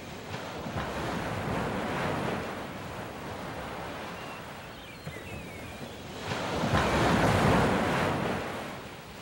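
Ocean surf breaking and washing up a sandy beach, swelling twice, with the louder wave about seven seconds in.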